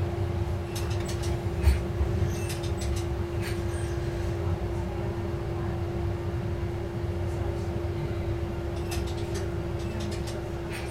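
KiHa 11 diesel railcar heard from the driver's cab as it rolls slowly into a station and stops: a steady low rumble with a constant hum, scattered light clicks, and one knock about two seconds in, the sound easing off gently as it comes to a halt.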